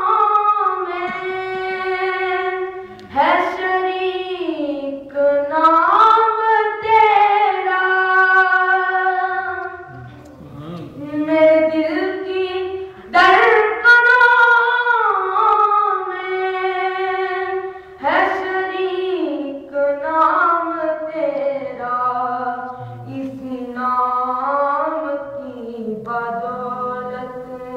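A boy singing a naat, an Islamic devotional song in praise of the Prophet, unaccompanied into a microphone: long held notes that slide and waver, in phrases separated by short breaks.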